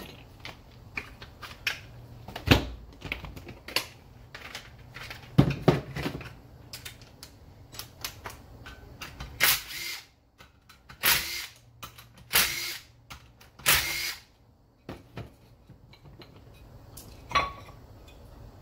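Tools and turbo parts knocking and clattering on a metal workbench, then four short bursts of a DeWalt cordless drill backing out the bolts of the turbo's front housing, about halfway through.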